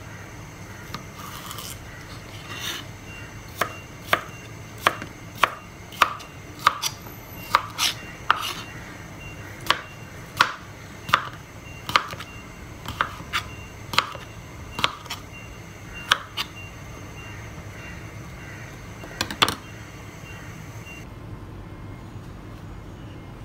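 Kitchen knife chopping cucumber on a plastic cutting board: a run of sharp knocks of the blade hitting the board, unevenly spaced at roughly one or two a second. They stop a few seconds before the end.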